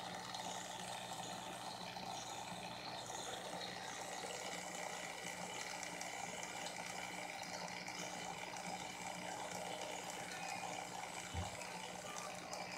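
Aquarium filter running: a steady trickle and splash of water with a low, even motor hum beneath it. One soft knock near the end.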